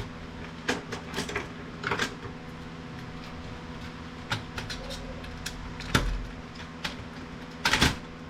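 Irregular clicks and knocks of plastic and metal printer parts being handled and pried as a small motor is taken out of an inkjet printer, with the loudest clatter near the end. A faint steady low hum runs underneath.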